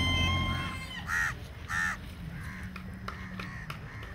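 A rooster's crow ends on a long held note in the first second, over a low rumble that fades at the same time. Then a crow caws twice, about a second in and again just under two seconds in.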